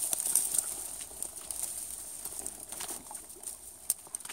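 Dry reed and grass stems rustling and crackling as someone pushes through them in rubber boots to wade into shallow water, with scattered small clicks and snaps.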